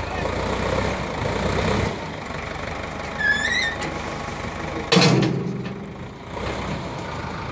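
Hindustan tractor engine running steadily, a little louder in the first two seconds. A short, high, rising squeal comes about three seconds in. A loud clank that rings briefly comes about five seconds in.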